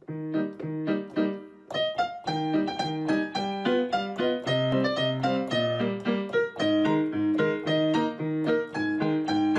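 Background piano music: a quick, steady run of notes over lower chords.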